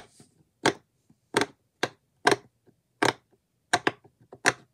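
Silicone push-pop fidget toy (an octagon-shaped rainbow pop-it) being pressed bubble by bubble, giving about eight sharp pops spaced unevenly half a second to a second apart.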